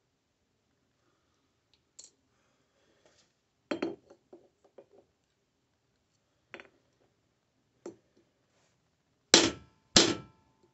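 Hammer striking sterling silver on an anvil in scattered, spaced blows. A few lighter taps come first and the two loudest blows land about half a second apart near the end, the last one leaving a short metallic ring.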